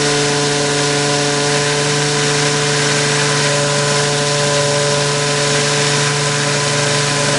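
A 200-watt stick blender running steadily with an even motor hum as it blends raw soap batter just after fragrance oil was added, checking whether the scent makes the batter accelerate toward trace. It is switched off at the very end.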